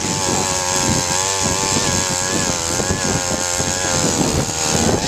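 Two-stroke engine of a StrikeMaster gas ice auger running steadily under load as the auger bores through lake ice, its pitch wavering slightly.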